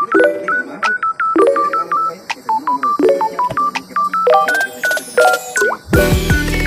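Background music: an electronic melody of short, beep-like synth notes stepping up and down in pitch, with a heavy bass beat coming in near the end.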